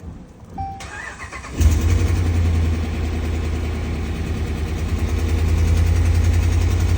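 A 2013 Ram 1500's 5.7 L Hemi V8 is cold-started. A short chime and brief cranking are followed by the engine catching about a second and a half in. It then settles into an uneven, struggling idle, the sign of the multi-cylinder misfire the truck is logging as code P0300.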